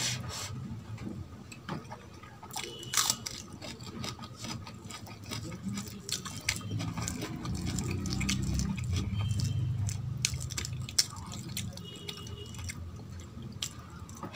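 Close-miked wet chewing and mouth smacking of a mouthful of rice and lentil dal eaten by hand, with many sharp little clicks. Around the middle, the hand squelches rice into the dal on the steel plate.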